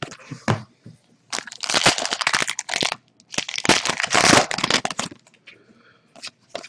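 A stack of trading cards being flipped through by hand: dry rustling and crackling of card sliding against card, in two long passes with a few sharp clicks before and after them.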